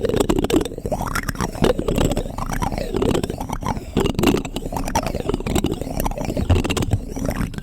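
ASMR spoon trigger: wet mouth sounds on a spoon close to the microphone, a steady stream of smacking, sucking and sharp little clicks with shifting hollow resonances.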